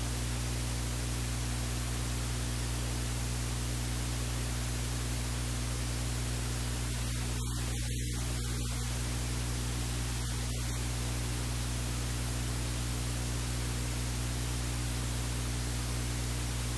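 Steady static hiss with a low electrical hum underneath, and no other sound.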